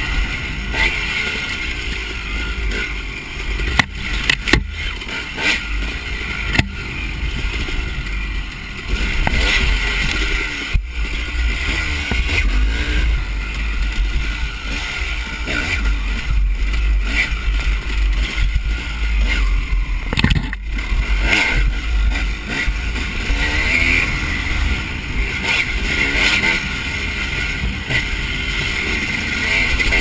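Dirt bike engine revving up and down as the bike is ridden hard along a rough trail, with heavy wind buffeting on the microphone. A few sharp knocks are heard.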